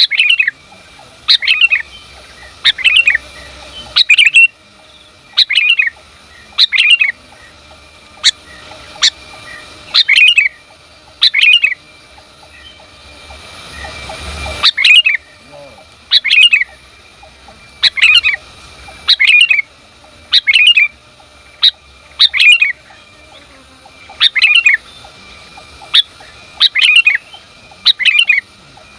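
Female sooty-headed bulbul calling: short, sharp chirping calls repeated about every second and a half, some in quick pairs. Near the middle a hiss swells up and then cuts off suddenly.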